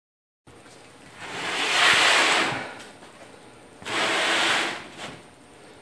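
A heavy granite surface plate slid by hand across an MDF spoil board: two scraping slides, the first about a second in and the louder, the second near the four-second mark.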